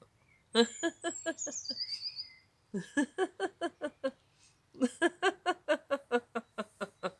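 A woman laughing out loud in three bouts of quick 'ha-ha' pulses, about five a second. The laughter is switched on deliberately as a laughter-yoga exercise.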